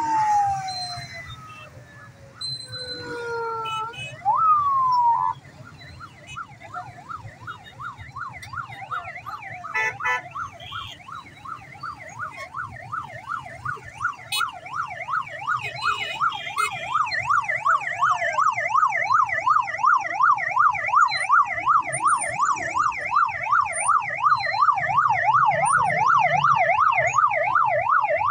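Emergency-vehicle siren: a few slow rising and falling whoops, then from about five seconds in a fast yelp of about three sweeps a second that grows louder toward the end.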